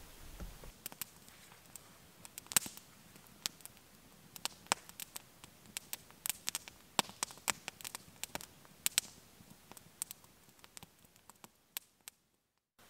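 Wood campfire crackling in a stone fire ring, with irregular sharp pops, a few of them loud. It fades out shortly before the end.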